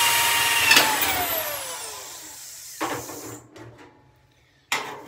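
Electric drill running at full speed with a steady whine, boring out spot welds in a truck's sheet-steel cowl panel. About a second in the trigger is let go, and the motor winds down, falling in pitch. Then come two sharp metallic knocks, one near three seconds and a louder one near the end.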